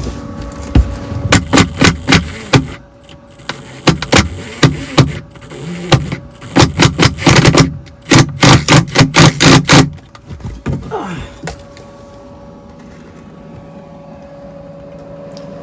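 Bursts of rapid sharp knocks, several a second, from screws being driven to fasten down a new board; they stop about ten seconds in. A space heater hums steadily underneath.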